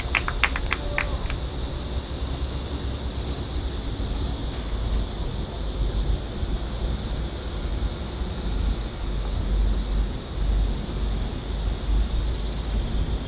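Insects chirping in short, fast, high-pitched pulse trains that repeat about every second, over a steady low rumble. A few sharp clicks come in the first second.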